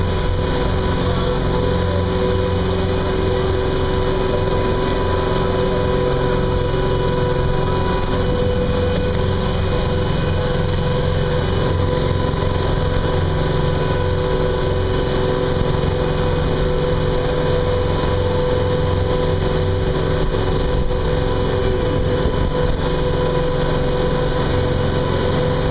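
Small boat's motor running steadily as the boat cruises, an even drone with a steady whine in it.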